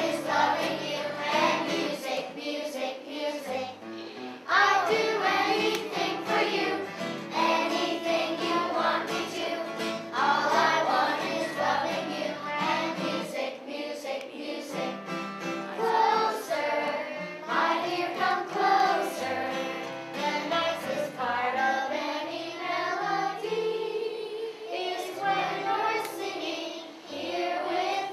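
A song sung by a group of children together, with musical backing, going on without a break.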